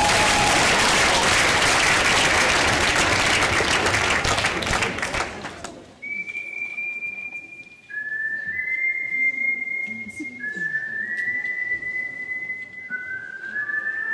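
Audience applause for the first five seconds or so, dying away. Then a series of long, steady whistled notes, each held a second or two and stepping between slightly different pitches, sometimes two at once.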